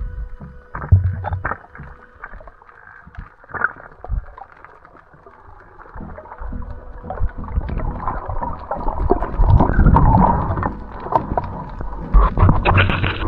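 Muffled underwater sound picked up through a dive camera's housing: scattered clicks and knocks, then a louder rush of water noise from about seven seconds in as the diver swims.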